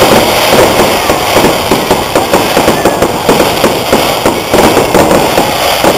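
Fireworks barrage: a dense, rapid run of sharp bangs and crackling reports, many a second, from aerial shells bursting.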